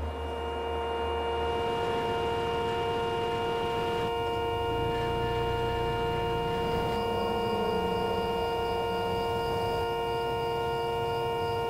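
A sustained electronic drone: several steady tones held together as one unchanging chord, with a faint high tone joining about seven seconds in.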